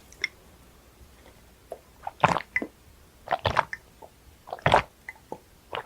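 Close-miked eating sounds: wet, squishy mouth sounds in a few short bursts about a second apart, after a quiet first two seconds.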